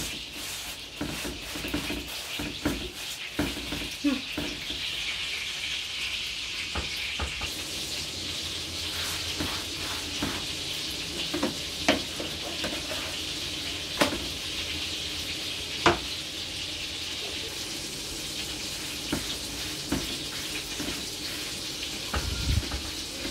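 Bazlama flatbread dough sizzling in a lightly oiled electric pan: a steady frying hiss, with a few sharp taps about halfway through.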